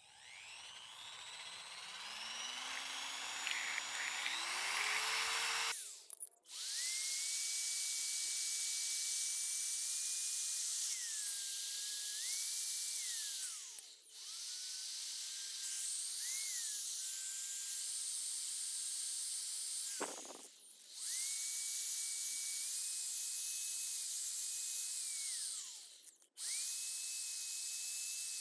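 Electric drill spinning a wire brush against rusty steel jack arms: a motor whine with the hissing scrub of the wire bristles on the metal. It speeds up slowly at the start, then stops and spins back up about four times, its pitch shifting as the brush is pressed on and eased off.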